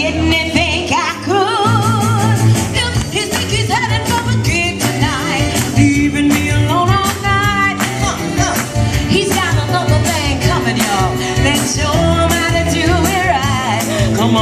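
Amplified soul and R&B music: a woman singing lead with heavy vibrato over a band backing with a steady bass beat.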